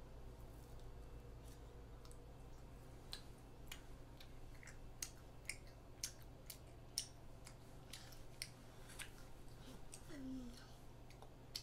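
A young child chewing a mouthful of wafer-shelled ice cream sandwich, with scattered sharp wet mouth clicks and lip smacks over a low steady hum. A brief falling sound from her voice comes near the end.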